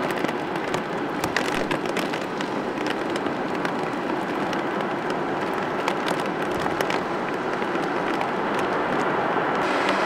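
Distant Boeing 777 jet engines at high thrust on a wet runway: a steady rushing jet noise with irregular crackles.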